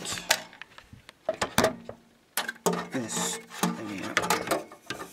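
Hands handling parts inside a Dell Dimension 5150 desktop's steel case: an irregular string of clicks, knocks and rattles of plastic and metal.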